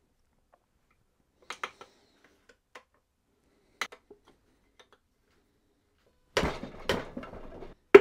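Hand tools and metal engine parts clinking: a few light, sharp clinks, then two louder metal knocks with a short rattle near the end.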